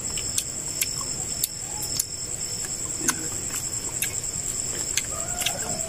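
Night insects trilling steadily in one high, continuous tone, with a series of short, sharp clicks through it.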